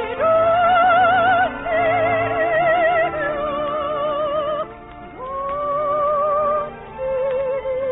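Music from an old radio broadcast of a stage musical: an operatic-style melody of long held notes with wide vibrato over a soft accompaniment. The sound is thin and has no highs.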